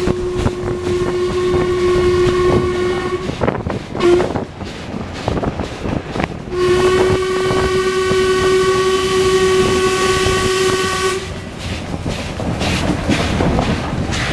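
Steam whistle of Sri Lanka Railways B1A locomotive No. 251 blowing, heard from its tender. There is a long steady blast of about three seconds, a short toot, then a second long blast of about four and a half seconds, all over the clatter of wheels on the rails.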